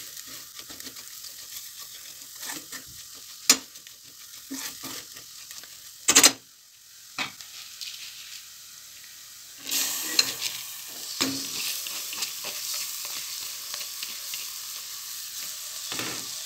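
Chopped onions and flour frying with a soft sizzle in a stainless steel pot, stirred with a silicone spatula that scrapes and knocks against the pot now and then. The sizzle grows louder about ten seconds in.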